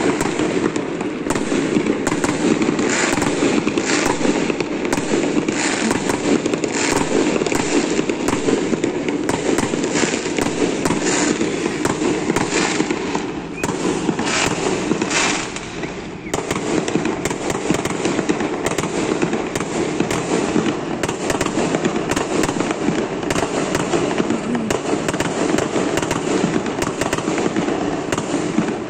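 A fireworks display going off nonstop: a dense run of bangs and crackling that eases briefly twice near the middle.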